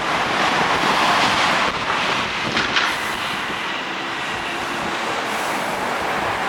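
A train running past, its noise swelling to a peak about a second in and then easing off, with a few sharp clicks from the wheels on the track and a faint steady whine later on.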